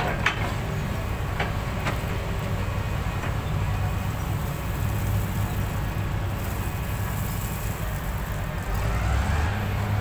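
Hyundai crawler excavator's diesel engine running steadily, with a few sharp clanks in the first few seconds as the bucket digs into a gravel pile. The engine note grows louder near the end as the loaded boom lifts and swings toward the truck.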